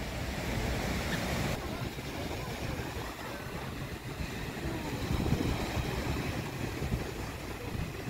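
Small waves washing up a sandy beach, a steady surf hiss, with wind buffeting the microphone as a low rumble.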